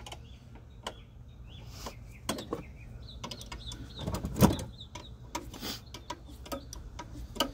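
Light metallic clicks and knocks of a wrench on the brake-line fittings of an ABS hydraulic brake booster unit as the lines are undone, with one louder knock about four and a half seconds in. Birds chirp faintly behind.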